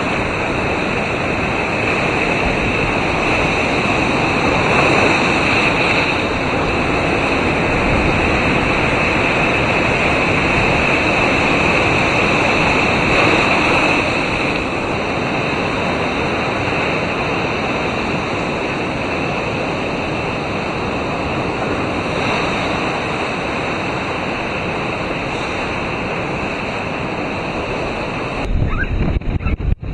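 Heavy hurricane-driven storm surf: waves breaking and foam washing up the beach in a loud, steady rush. Near the end the sound turns choppy, with wind buffeting the microphone.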